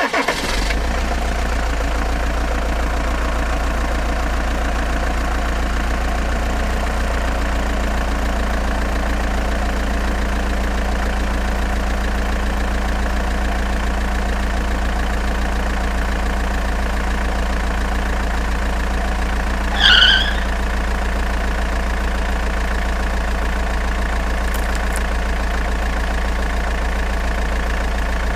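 An engine idling steadily, with a brief high chirp about twenty seconds in.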